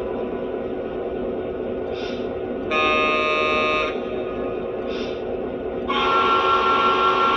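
Lionel Legacy SW8 model locomotive's sound system playing a diesel switcher idling, with two horn blasts: one about three seconds in and a longer one starting about six seconds in.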